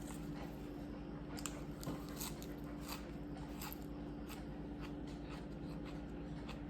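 Close-up eating sounds: a person biting and chewing food, with small irregular crunches, over a steady low hum.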